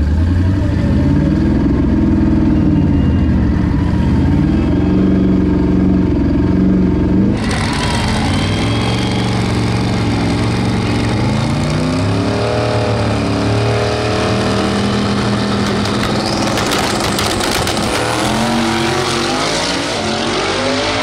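Turbocharged drag-race car engine running with a lumpy idle and being revved in repeated climbs on the start line, with several rising runs of revs after the first few seconds.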